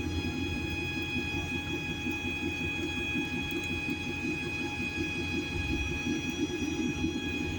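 FDM 3D printer running: a steady, high whine over a rough, fluttering low rumble.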